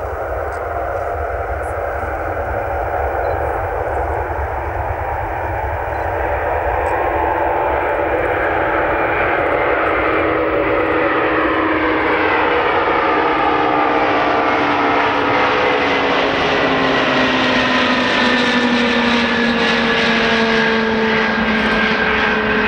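Antonov An-124's four Progress D-18T turbofan engines at takeoff thrust as the freighter lifts off and climbs out, growing louder as it nears. A deep rumble sits under several whining tones that slide down in pitch from about halfway through as it passes.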